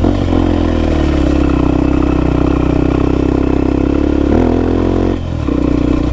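Honda XR250 Tornado's single-cylinder four-stroke engine running loud through a Belparts aftermarket exhaust as the bike pulls uphill, its note climbing slowly. About four seconds in the revs jump, then drop off for a moment before picking up again.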